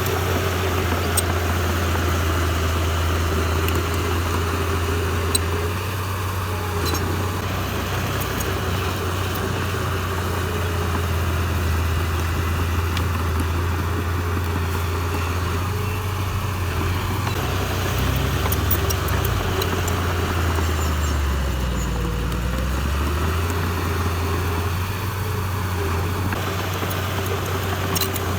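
Heavy diesel engine of an earthmoving machine running steadily under work, its engine speed dipping and picking back up about three quarters of the way through.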